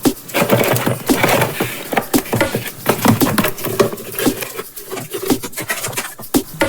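Rapid, irregular clicking and knocking of hard objects being handled, several strikes a second, some with a short hollow ring.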